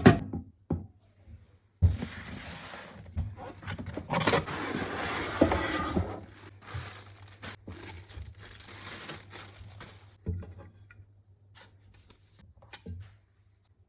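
Packaging being handled while saucepans are unboxed: rustling and tearing of wrapping with scraping, busiest around the middle, and a few light knocks toward the end.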